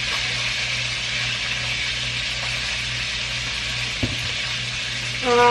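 Steady hiss with a low hum underneath, the constant background noise of the recording, and one brief faint click about four seconds in.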